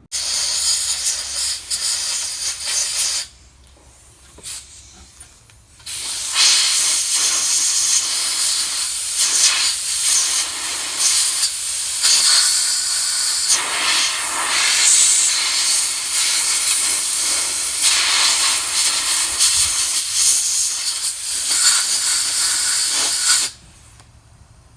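Pressurised spray hissing as a dirty BMW VANOS solenoid is blasted clean: a burst of about three seconds, a short pause, then one long continuous blast that cuts off suddenly near the end.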